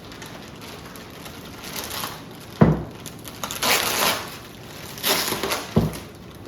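Plastic wrapping crinkling and rustling as it is pulled off a model jet wing, in several crackly bursts, with two dull thumps, one about two and a half seconds in and one near the end.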